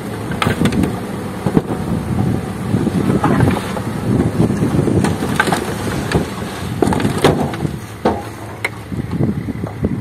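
Dump truck's diesel engine running while the hydraulic hoist tips the bed, and a load of soil and rocks sliding out over the tailgate in a continuous rumble. Several sharp knocks are scattered through it as stones and clods drop.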